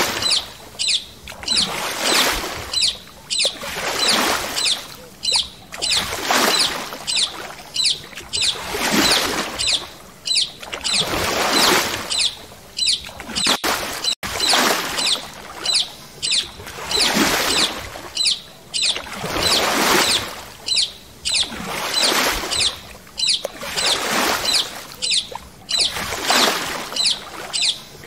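Paddle strokes in water from a stand-up paddle board: a regular swish and splash of the blade dipping and pulling, about one stroke a second.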